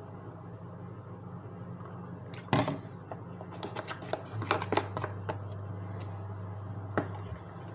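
Irregular sharp clicks and taps, like small objects being handled, the loudest about two and a half seconds in and a quick cluster a second later, with a low steady hum for about three seconds in the middle.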